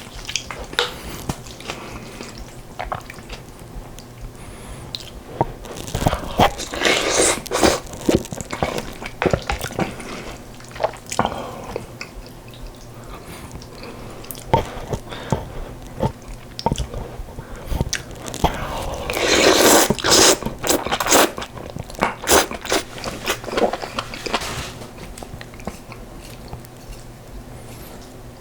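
Close-up chewing and biting with crisp crunches, typical of fresh geotjeori cabbage kimchi eaten with rice and yukgaejang; irregular mouth clicks throughout, with busier, louder stretches about a quarter of the way in and again past two-thirds of the way.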